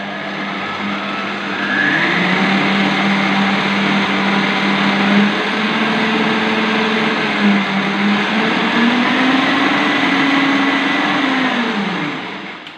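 Kenwood stand mixer's food-processor attachment running, its blade chopping margarine with ground almonds and icing sugar: a steady motor hum with a dense churning noise. The pitch rises a little about nine seconds in, then the motor winds down and stops near the end.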